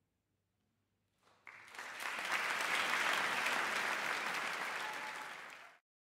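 Audience applauding. It swells in about a second in after a brief silence, holds steady, and is cut off abruptly near the end.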